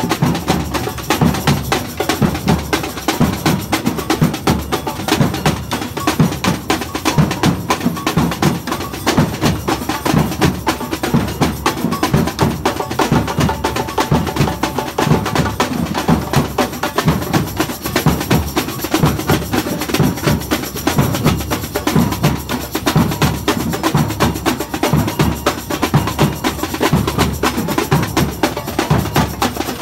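Samba batucada percussion: a band of surdo bass drums, snare drums and metal jingle shakers playing a steady, driving groove with dense sharp strikes.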